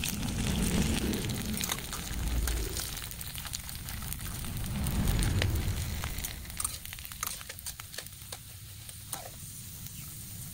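Dried coloured crackers sizzling and crackling in hot oil in an aluminium wok as they puff up, with many sharp pops. A low rumble sits under the first half.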